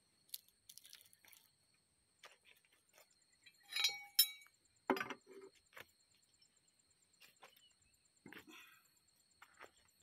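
Scattered metallic clinks and taps of hand tools on steel parts, loudest in a short cluster about four seconds in, over a faint steady high-pitched tone.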